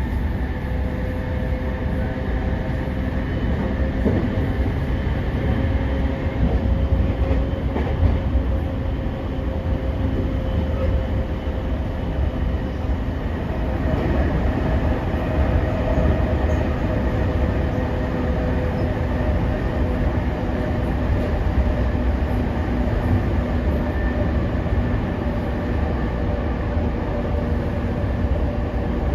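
Running noise heard inside a JR 209 series 500-subseries electric train car between stations: a steady low rumble of wheels on rail with steady humming tones. The pitch of the tones shifts slightly about halfway through.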